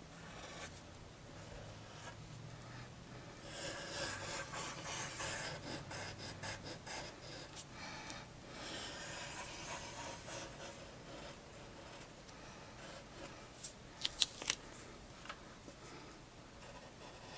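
Pencil scratching across sketchpad paper in runs of quick strokes, with three sharp clicks about fourteen seconds in.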